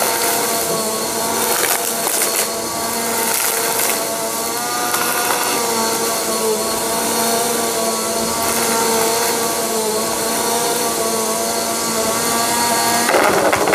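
Upright bagless vacuum cleaner running on carpet, its motor whine wavering slightly in pitch as it is pushed back and forth. A short crackling burst comes near the end.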